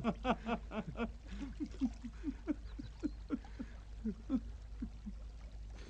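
Hearty male laughter: a quick run of laughs that slows into separate falling chuckles and fades out.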